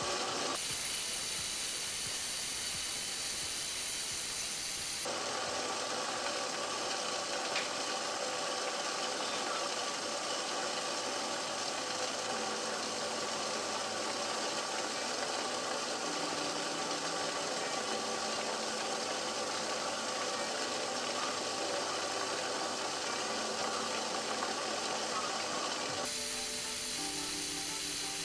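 Steady hiss of homemade alcohol stoves burning in pocket stoves under pots of cooking rice, with steam. The sound changes abruptly a few times, where the footage cuts ahead.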